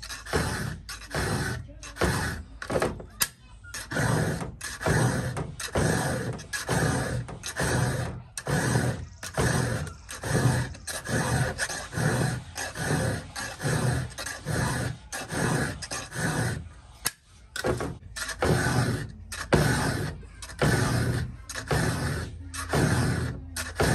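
Round file being drawn through the cutters of a skip-tooth chainsaw chain, sharpening it by hand: a steady run of rasping file strokes, about two a second.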